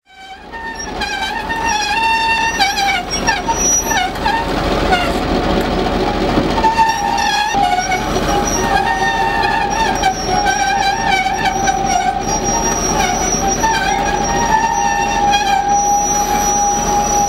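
Railway turntable squealing as it rotates with a Da-class diesel-electric locomotive on it: a continuous, wavering metallic screech that wanders slightly in pitch, over a steady low rumble. The sound fades in over the first second.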